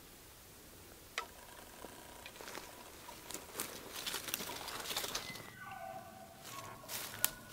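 Footsteps through dry grass and brush: scattered light crunches and rustles. About five seconds in, a brief pitched call of a few held tones sounds faintly for about a second.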